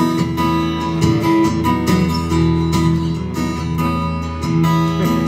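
Live pop-rock song in an instrumental passage: strummed acoustic guitar chords over a steady low bass, with no singing.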